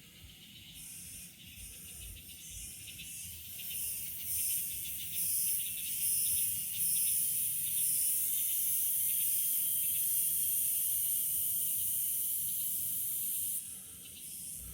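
Insect chorus: a high, shrill, pulsing buzz that swells in waves for several seconds, holds steady, then cuts off sharply near the end.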